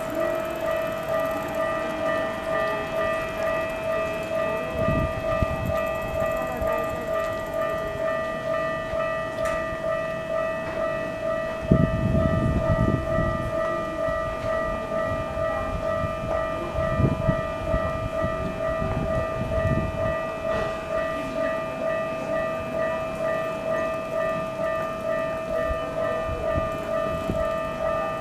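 Japanese railway level-crossing alarm ringing: an electronic bell repeating at one steady pitch without pause. Passing trains add short bursts of low rumble, the heaviest about twelve seconds in.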